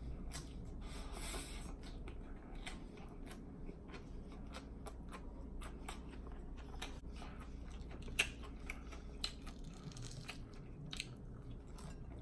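Close-miked open-mouth chewing with wet lip smacking: a steady run of small clicks and squishes, with a couple of sharper smacks about eight and nine seconds in.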